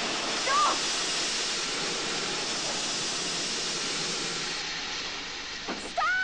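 Steam locomotive braking hard, its wheels sliding on the rails, making a steady loud grinding hiss. A short cry comes about half a second in and a shout near the end.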